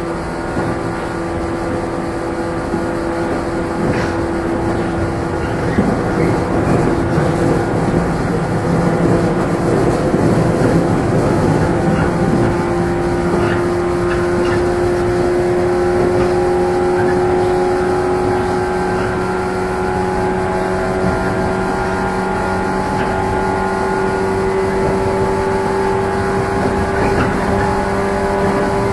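Interior running sound of a JR 115-series electric multiple unit's motor car under way: a steady hum and whine from the traction motors and gears over the rumble of wheels on rail. The loudness picks up a few seconds in, and the whine climbs slowly in pitch through the second half as the train gains speed.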